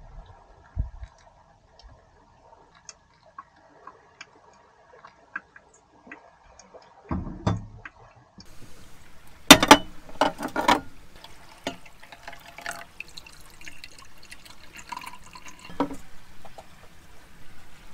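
Hot water trickling from a kettle into a pot of coffee, then scattered single drips. Later come sharp clinks and knocks of cups and kitchenware being handled, loudest about ten seconds in.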